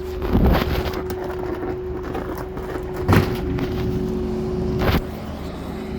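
Forklift engine running steadily with a constant hum, while three loud knocks ring out about half a second, three seconds and five seconds in as scrap AC units are handled.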